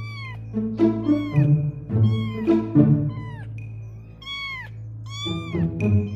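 Many short, high kitten meows, about one every half second, over background music with a low held note.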